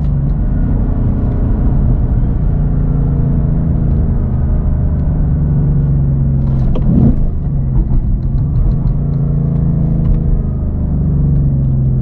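Ford Mustang S650 GT's 5.0-litre V8 running at a steady cruise in fifth gear, a low steady drone heard from inside the cabin over road noise.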